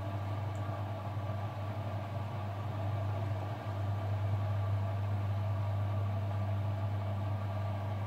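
Front-loading washing machine running with a steady motor hum, during an intermediate spin of the rinse cycle.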